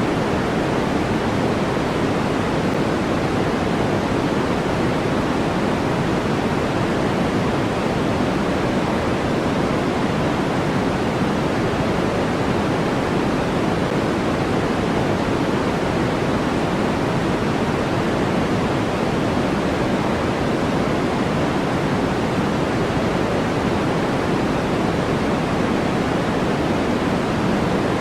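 Steady, unchanging generated noise from a white-noise sleep track: an even rushing hiss, heavier in the lows than in the highs, with no breaks.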